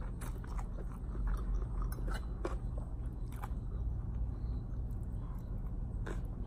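Mouth sounds of a person eating cucumber salad with instant noodles: noodles slurped in and a mouthful chewed, with scattered short smacks and crunches.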